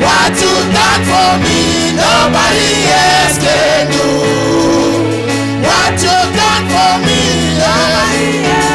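Gospel praise-and-worship song: voices singing a melody over a band with held bass notes and regular drum hits.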